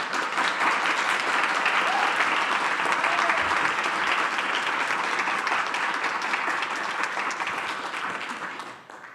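A small audience applauding, a dense patter of many hands clapping that fades out near the end.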